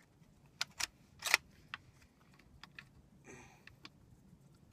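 Metallic clicks and clacks from the action of a Catamount Fury II 12-gauge semi-automatic shotgun being worked by hand to clear a failure to eject: a few sharp clacks about a second in, the loudest at about a second and a half, then a short rattle a little past three seconds.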